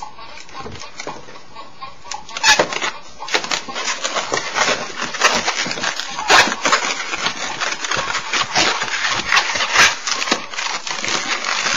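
Long thin latex twisting balloon being twisted and squeezed into shape, squeaking and rubbing in a rapid, irregular string of sharp squeaks that grows louder from about two and a half seconds in.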